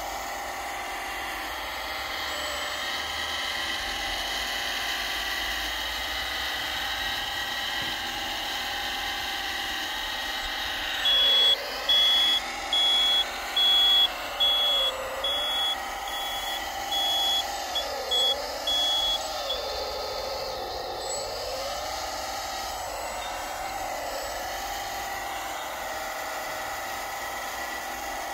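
Steady whine of a 1/14-scale RC hydraulic wheel loader's motors and hydraulic pump, its pitch dipping and rising as the machine works. From about a third of the way in, a run of about ten short high reversing beeps sounds while the loader backs up.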